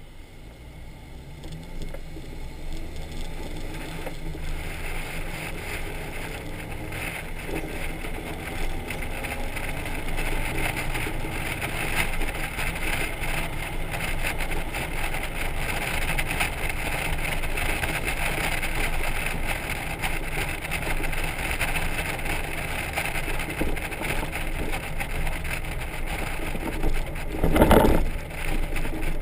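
Wind and road noise from a Honda Gold Wing motorcycle and its trailer pulling away from a stop and getting up to speed, growing louder over the first several seconds and then holding steady. A brief loud gust near the end.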